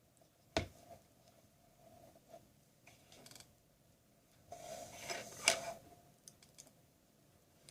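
Small plastic handling sounds: a sharp click about half a second in, then faint ticks. A little past the middle comes a scraping rustle with a sharp snap, as a credit card is worked under a tablet battery that is stuck down.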